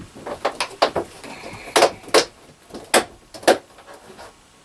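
Lightweight shower stall panels knocking and clacking as they are handled and pressed together: a run of sharp separate knocks, the loudest four coming between about two and three and a half seconds in.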